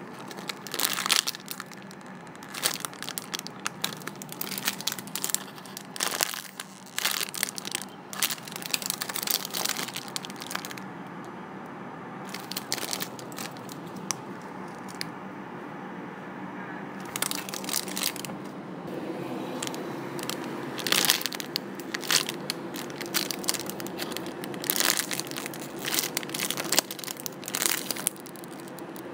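Thin clear plastic packaging bags crinkling as hands turn and squeeze the figurines inside them. The crackles come in irregular bursts, easing off for a few seconds near the middle.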